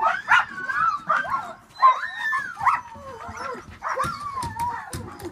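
Harnessed husky-type sled dogs yipping, whining and barking together, many overlapping high calls that slide up and down in pitch. This is the eager clamour of a team hitched and waiting to run.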